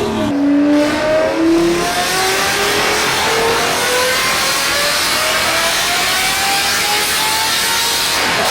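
A car engine under full throttle on a chassis dynamometer, its note climbing in a few quick steps over the first two seconds, then rising steadily for several seconds as it pulls up through the rev range.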